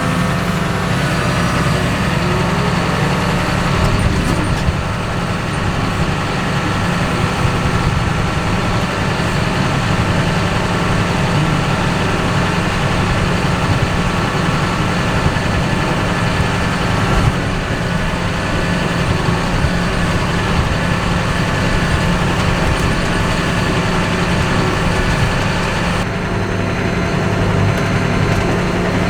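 Heavy engine of a snow-pushing machine with a front blade running steadily under load as it pushes wet snow, with small shifts in the engine note about two-thirds and near nine-tenths of the way through.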